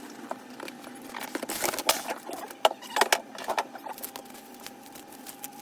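A run of sharp clicks and taps, from about a second in to about three and a half seconds, made by small tools and parts being handled during a laptop repair.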